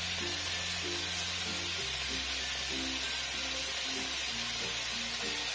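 Background music of short repeated notes over a bass that changes about every two seconds, with a steady hiss underneath.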